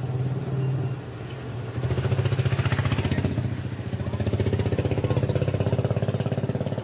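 Small engine idling close by: a steady low throb with a rapid even pulse, louder from about two seconds in.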